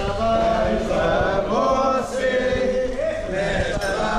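A group of men singing together in unison, with long held notes.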